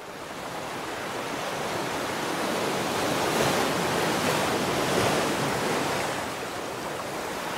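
Rushing wash of ocean surf, fading in from silence and swelling through the middle before easing off slightly.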